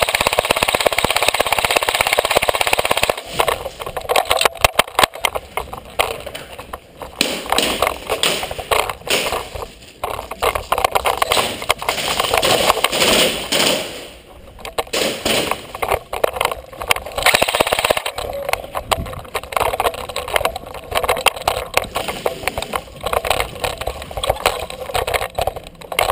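KWA SR5 airsoft rifle firing in bursts of rapid shots, on and off, with loud stretches a few seconds long broken by short pauses.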